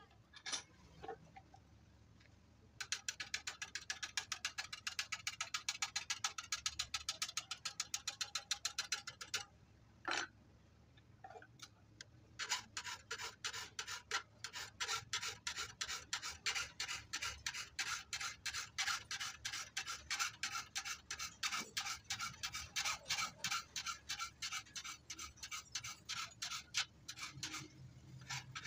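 A hand file rasping across the steel teeth of a hand saw clamped in a vise, in quick short strokes several times a second. After a couple of knocks it starts about three seconds in, stops with a knock about ten seconds in, and starts again a couple of seconds later.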